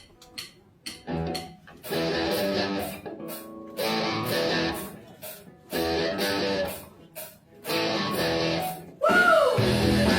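Rock music on guitar: chords played in bursts about every two seconds with short gaps between. About nine seconds in it turns louder and fuller, opening with a falling pitch sweep.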